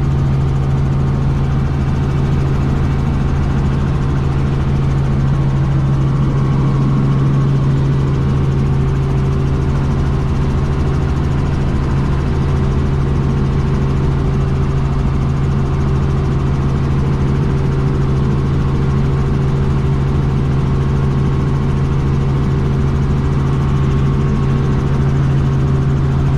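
Small helicopter's engine and rotor running with a steady, unchanging low hum, heard from inside the cabin, as it lifts off and climbs out.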